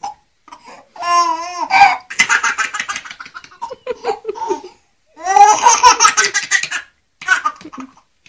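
Baby laughing in fits of short, rapid bursts, with one long laugh about a second in and a bigger one about five seconds in, and quieter laughs between and near the end.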